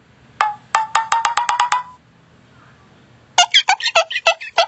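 Edited-in cartoon sound effects. First a quick run of about ten clicking pings that speeds up over a slightly rising tone. After a pause comes a fast run of wobbling notes that bend in pitch.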